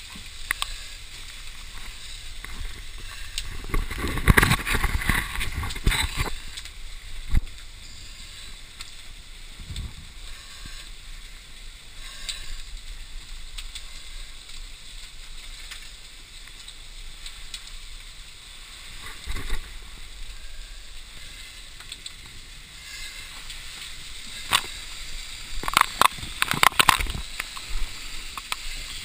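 Sounds inside a burning building: a steady hiss with scattered knocks, and loud rushes of noise about four seconds in and again near the end.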